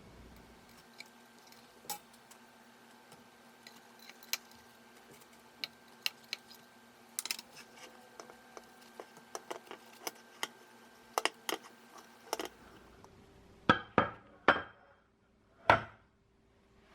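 Light clicks and clinks of small hard objects being handled, scattered irregularly, then four louder knocks near the end.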